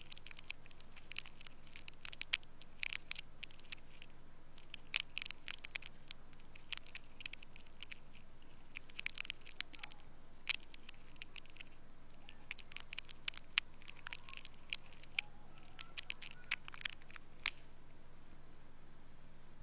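Ear pick scraping inside the ear canal: irregular crackling and scratching clicks that come in clusters, over a faint steady low hum.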